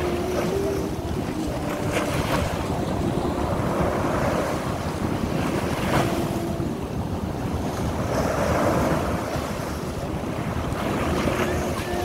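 Small sea waves breaking and washing up onto a sandy beach, the surf swelling and easing every few seconds.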